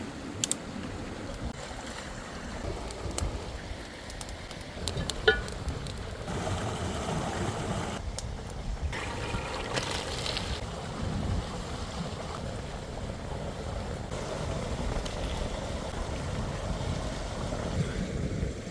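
Outdoor wind noise, rumbling and buffeting on the microphone, with scattered sharp clicks and crackles.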